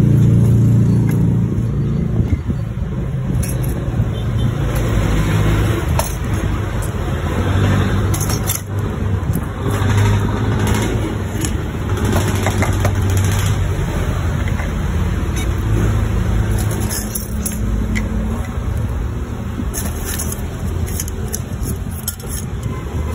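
A steady low hum, like a running motor or engine, with scattered light clicks and clatter from plastic and metal parts being handled.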